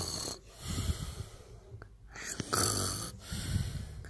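Loud snoring: twice, a hissing breath is followed by a low, rough rattling snore, each phase lasting about a second.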